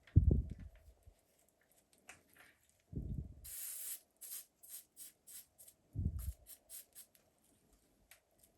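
Small handling sounds during soldering-iron tinning work: three low bumps, the first the loudest, a short hiss about three and a half seconds in, then a run of light quick ticks.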